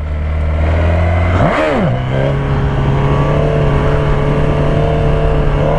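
Stock sport motorcycle engine pulling away from about 30 km/h under throttle: a low steady engine note, then a quick rise and fall in pitch about a second and a half in, then a steady, higher engine note, with wind hiss on the rider's microphone.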